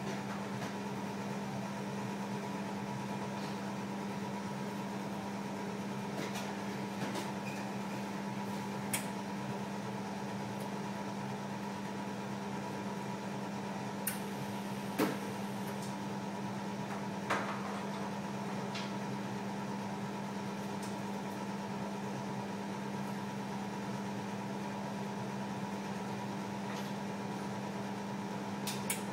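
Steady mechanical hum with a low tone and a higher whine held over it, and a few faint clicks.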